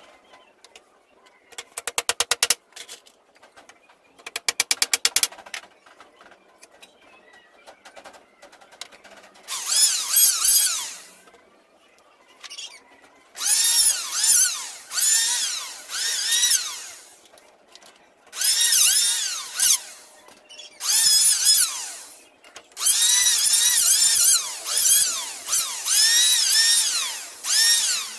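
Electric hand planer shaving the wooden rails of a door frame in repeated passes. Its high whine dips in pitch and recovers as the blades bite, with the passes coming close together near the end. A few short rattling bursts come in the first few seconds.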